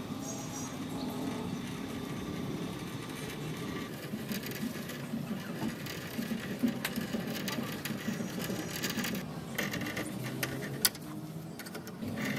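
Metalworking on steel held in a vise: a small power tool runs steadily, with scattered metallic clicks and a sharp knock near the end.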